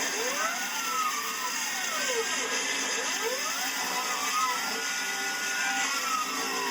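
Stepper motors of a homemade CNC lathe whining as they drive the feeds, their pitch repeatedly rising and falling as the carriage speeds up and slows down, over a steady hiss.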